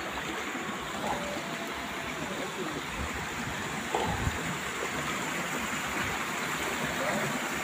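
Shallow water running steadily over rocks in a stream bed, with a brief low thump about four seconds in.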